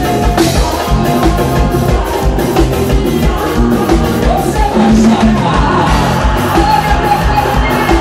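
Forró music with a steady driving beat and a singing voice.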